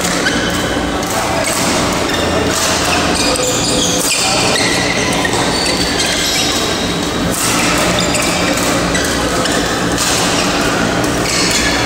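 Badminton being played in a large, echoing hall: scattered sharp racket strikes on the shuttlecock and shoe squeaks on the court, over a steady low hum and faint distant voices.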